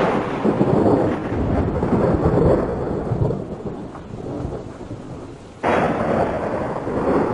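Recorded thunderstorm sound effect: rolling thunder over steady rain that slowly fades, then a fresh thunderclap breaks in sharply about five and a half seconds in. It is the storm intro of a country song's backing track, before the music starts.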